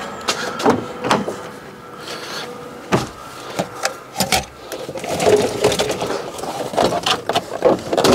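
Knocks, clicks and scraping of plastic trim as a Fiat 500's dashboard is worked loose and pulled out, getting busier with rattling from about five seconds in.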